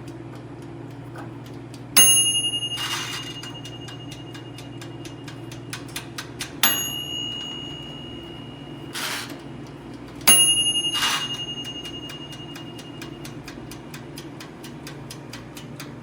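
Toaster oven's mechanical dial timer ticking steadily and quickly, its bell dinging three times, each ring fading away over a couple of seconds. Short swishing sounds come between the rings.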